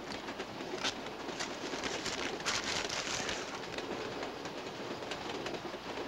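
Steady rumbling ride noise of a moving vehicle, with irregular clicks and rattles and a brief louder hiss about two and a half seconds in.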